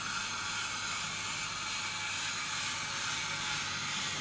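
Bachmann OO gauge Southern H2 Atlantic model steam locomotive running on its track. Its Zimo sound decoder plays steam-locomotive sound through a small 23 mm speaker, heard as a steady hiss, together with the running noise of the model's mechanism and wheels.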